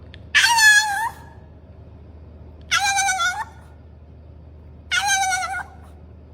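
A dog giving three short, high-pitched whining calls, each a little under a second long and about two seconds apart.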